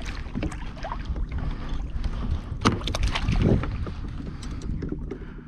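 Water lapping and splashing against a kayak's hull with wind rumbling on the microphone, and a few short, louder noises near the middle.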